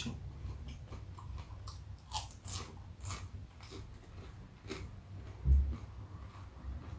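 Close-miked chewing of crispy breaded chicken nuggets: irregular crunches, with one low thump about five and a half seconds in.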